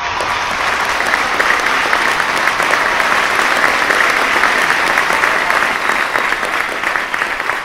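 Audience applause: a dense round of clapping that starts suddenly, holds steady and eases a little near the end.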